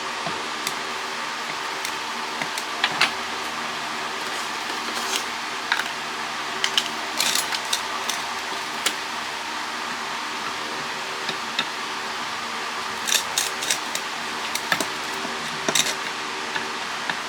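Scattered metallic clicks and clinks of hand tools working on a satellite dish LNB's aluminium housing during disassembly, over a steady hum.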